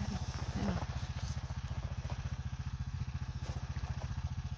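ATV engine running at low speed with a steady low throb while it pulls a round hay bale on a bale unroller.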